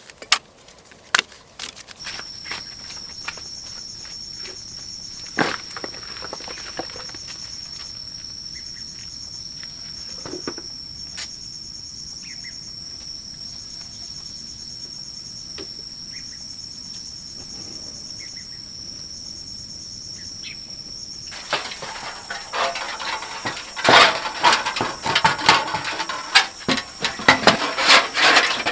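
A high, steady insect buzz with a faint pulsing, starting about two seconds in, with scattered light clicks over it. The buzz cuts off about three-quarters of the way through, and a run of loud clattering and knocking takes over.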